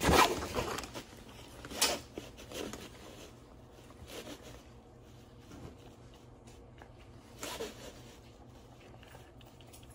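A German shepherd grooming itself on a raised fabric cot bed, nibbling at its hind leg and flank: short raspy, zipper-like rustling noises, loudest near the start and again about two seconds in, then faint.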